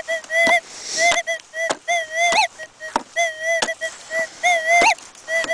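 Minelab Eureka Gold metal detector sounding a rapid run of warbling tones, many ending in a quick upward chirp, with sharp clicks between them, as its coil is pumped up and down to ground-balance. The tones are the detector screaming over highly mineralized soil, not over metal.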